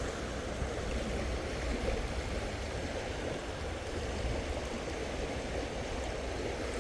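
Creek water rushing steadily over rapids, the creek running high and fast.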